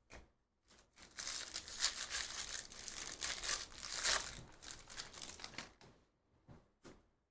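Foil wrapper of a Bowman baseball card pack being torn open and crinkled by hand: a dense crackle for about five seconds, with a few short rustles near the end as the cards come out.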